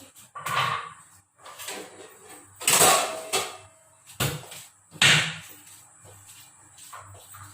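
Kitchen clatter: a run of separate knocks and clanks, the loudest about three seconds in and again about five seconds in.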